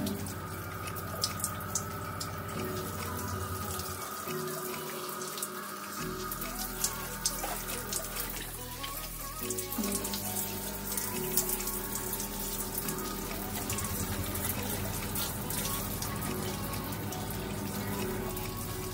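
Shower water running and splashing onto hair and skin while wet locs are rinsed by hand, with music playing underneath.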